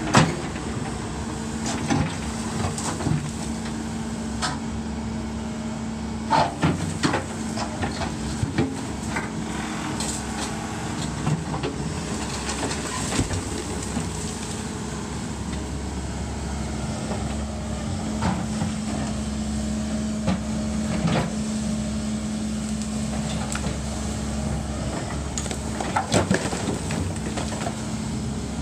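Tracked excavator's diesel engine running steadily as its steel bucket digs into broken concrete slab and rubble, with scattered knocks and cracks of concrete being struck and scraped, in clusters about a quarter of the way in and near the end.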